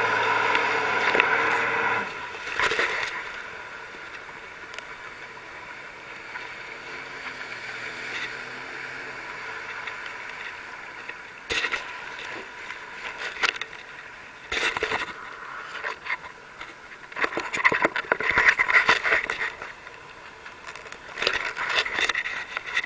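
A motor runs for about the first two seconds, then drops away. After that comes a faint hum and irregular bursts of water slapping and wind buffeting as choppy wake water rocks the small craft.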